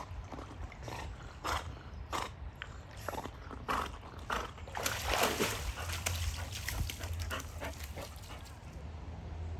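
A dog swimming with a ball in its mouth: short huffing breaths and paddling splashes repeating about every half second to second, with a louder, longer stretch about five seconds in.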